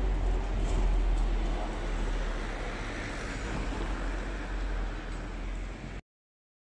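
Wind rumbling on the microphone and road noise from a moving electric kick scooter, with city traffic around; it cuts off suddenly near the end.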